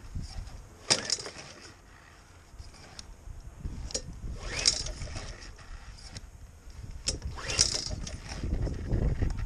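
Lawnmower pull-cord starter yanked three times, each pull a quick rushing whirr as the engine spins over freely with its spark plug out for a spark check. The engine does not fire.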